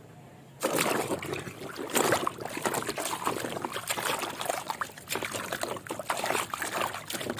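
Water poured and splashing over muddy toy vehicles, starting suddenly about half a second in and running on as a spattering trickle.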